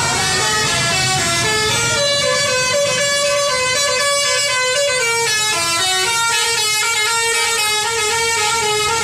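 A bus's telolet horn, a multi-tone musical air horn, playing a melody as a chord of several tones that steps from note to note. It sounds continuously and cuts off abruptly at the end.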